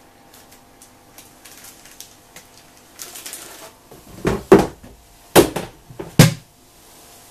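Plastic zip-lock bag crinkling as it is sealed and shaken. Then a clear plastic storage box is set down over it on a table, giving four sharp knocks in the second half, the last the loudest.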